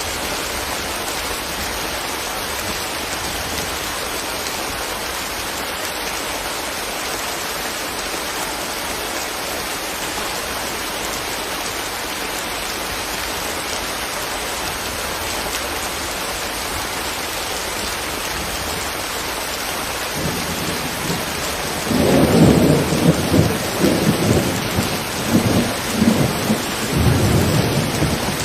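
Steady rain hiss. About twenty seconds in, a long roll of thunder starts low and swells into loud, surging rumbles that become the loudest sound.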